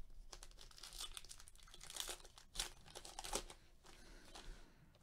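A 2019 Topps Heritage baseball card pack wrapper being torn open and crinkled by gloved hands: a faint run of irregular crackles, loudest from about two to three and a half seconds in.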